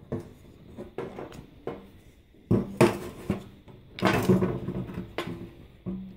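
Aluminum lead-casting mold for jig heads clicking and clanking as it is handled, opened and set down on a wooden table after a pour, a string of separate knocks with the loudest about three and four seconds in.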